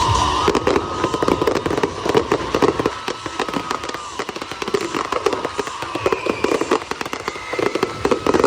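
Fireworks going off: a dense, irregular crackle of many rapid pops and bangs.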